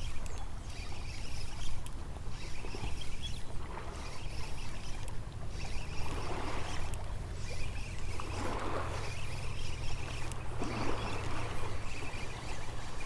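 Soft washes of small waves lapping at the shoreline, three or four of them in the second half, over a steady low rumble.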